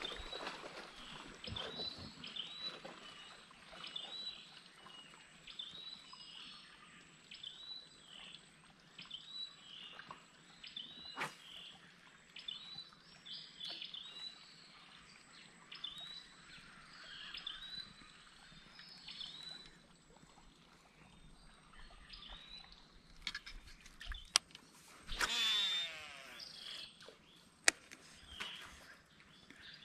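Faint outdoor ambience with a short rising-and-falling animal call repeated about once a second. A few sharp clicks are scattered through it, and a brief louder whir comes near the end.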